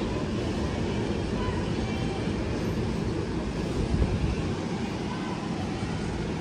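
R188 subway train on the elevated line, a steady low rumble, swelling briefly about four seconds in.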